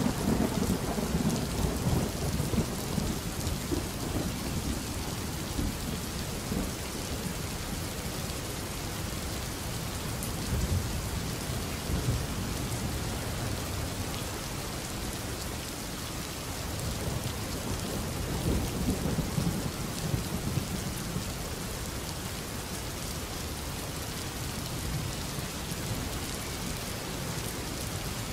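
Steady rain with low rolling thunder, the rumble strongest right at the start and again about two-thirds of the way through.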